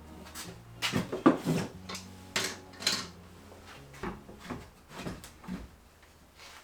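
Wooden knocks and clunks of workshop items being handled and set in place, about eight separate hits, loudest in the first three seconds and softer after that.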